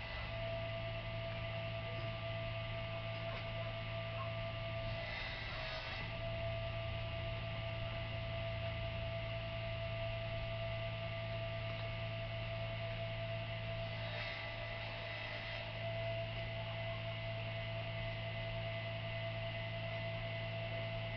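Steady electrical hum made of a low drone and a few thin higher tones, over a faint hiss; the hum wavers briefly about five seconds in and again about fourteen seconds in.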